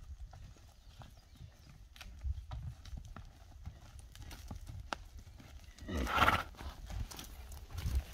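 Horses walking, with scattered dull hoof steps, and about six seconds in one horse gives a short, loud whinny.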